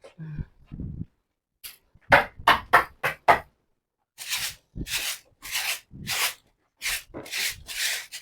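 Broom sweeping a sawdust-covered pen floor: a quick run of short brushing strokes, then slower, longer swishes about every half second.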